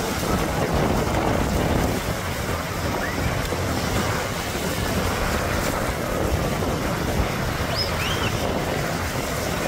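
Military helicopter flying low overhead: a steady rushing rumble of its rotor, mixed with wind buffeting the microphone and surf.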